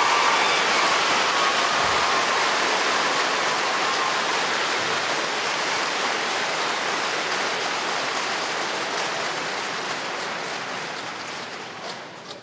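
Arena crowd applauding, with cheering in the first few seconds; the applause slowly dies away.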